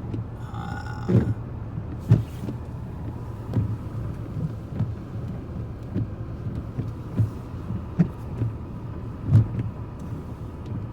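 Low, steady rumble of a car heard from inside the cabin, with irregular knocks and thumps throughout and a brief tone about a second in.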